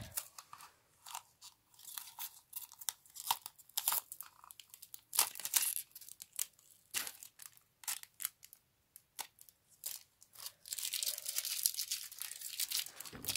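Clear adhesive tape being peeled off a painted wooden box: a run of sticky crackles and small pops, turning into a longer continuous rasp near the end.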